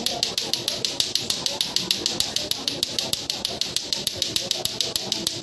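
Lato-lato clackers: two hard plastic balls on strings knocking together in a steady, unbroken rhythm, about five sharp clacks a second.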